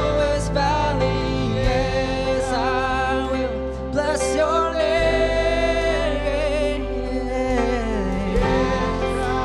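Live worship band playing a slow song: a woman sings a wavering melody over keyboard and guitar, with low sustained bass notes changing every couple of seconds.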